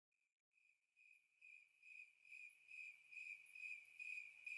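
Crickets chirping faintly, fading in from silence about a second in: one high, even-pitched chirp repeating about twice a second.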